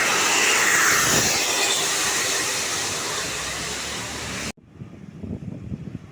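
Tour bus passing close by: a loud rush of engine, tyre and air noise that slowly eases, then cuts off suddenly about four and a half seconds in, leaving a quieter low rumble.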